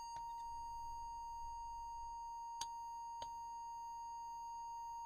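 Steady, unwavering single-pitch audio test tone used to modulate a CB radio for an AM tone power test, with two faint clicks partway through.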